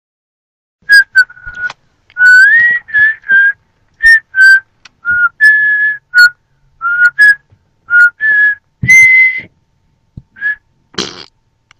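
A person whistling a tune in short notes, one of them sliding upward about two seconds in, with a short noisy burst near the end.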